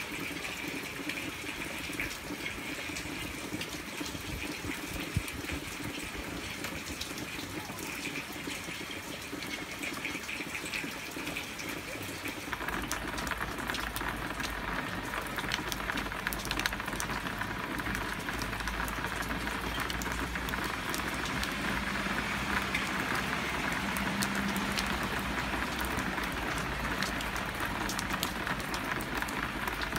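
Hard rain falling steadily, a dense even patter and splash. About twelve seconds in it turns louder and fuller, as drops splash into water pooled on a flat balcony ledge.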